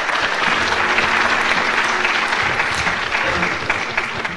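Audience applauding in a hall, a dense patter of many hands clapping that fades near the end.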